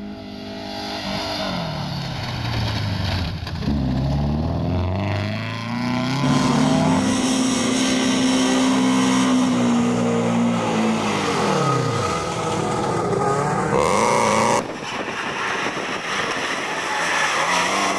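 Rally car engines revving hard and running at high revs, the pitch dropping sharply as a car passes about twelve seconds in. About fifteen seconds in there is an abrupt cut to another car's engine note.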